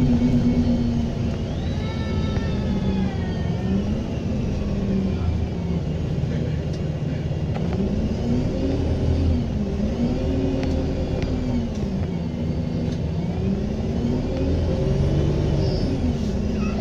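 Diesel engine of a single-deck bus pulling away and easing off several times, with its turbocharger whistle rising and falling in pitch along with the engine.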